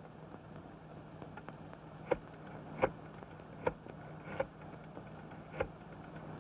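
Candlestick telephone's rotary dial being worked to place a call: five short clicks spaced about a second apart, over the steady low hum and hiss of an old film soundtrack.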